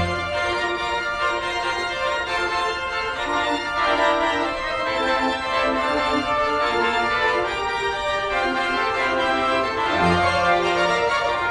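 Organ music: sustained chords that shift slowly, with a deep bass note coming back in about ten seconds in.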